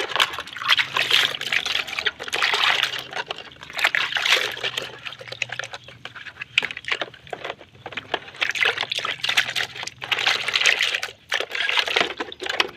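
Water pouring and splashing over a toy car as it is rinsed and scrubbed clean, with many small irregular clicks and knocks, the sound swelling and falling every second or two.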